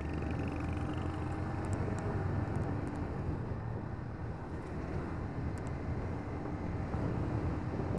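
A Yamaha Vixion R 155 VVA's single-cylinder engine running steadily at cruising speed in fifth gear, about 60 km/h, over a steady rush of wind and road noise.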